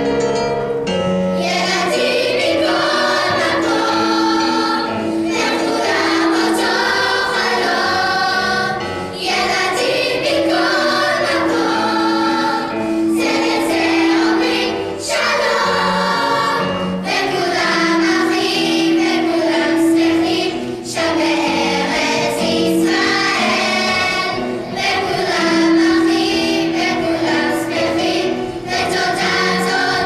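Children's choir singing in phrases of a few seconds, with electric keyboard accompaniment.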